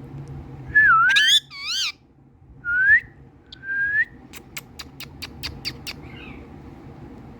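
Indian ringneck parakeet giving a burst of loud, warbling whistled calls, then two short rising whistles. A quick run of sharp clicks follows.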